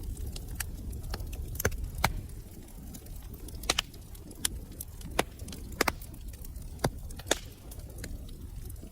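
Wood fire burning in a fireplace: a low rumble of flames with irregular sharp crackles and pops, a dozen or so, the loudest clustered between about 3.5 and 7.5 seconds in.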